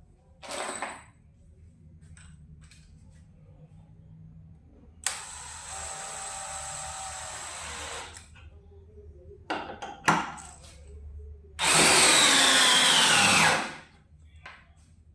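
Cordless DeWalt brushless hammer drill running in separate short runs: a brief burst, then a steady run of about three seconds, then a louder two-second run near the end whose pitch falls as it takes load.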